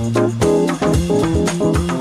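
Instrumental jazz blues played by a piano trio, with bass and a drum kit keeping a steady beat under the melody.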